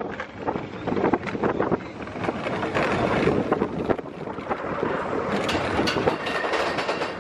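Roller coaster train of Expedition Everest rolling along its track, its wheels rattling and clattering over the rails, with wind buffeting the microphone.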